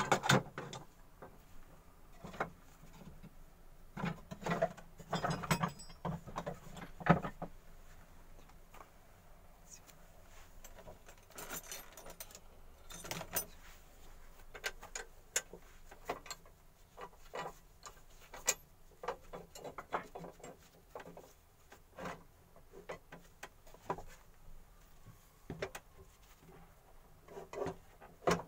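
Wooden pieces and hand tools being handled at work: irregular clicks, taps and knocks with no motor running, a dense cluster of knocks about four to seven seconds in, ending in the loudest one.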